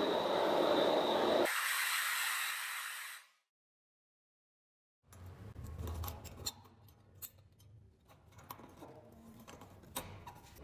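Handheld gas torch flame hissing steadily for about three seconds, turning brighter and higher about halfway through, then cutting off into dead silence. After that come light, scattered clicks and scrapes of a pointed metal tool and tweezers picking at a melted lump of solder on the old blowtorch's base.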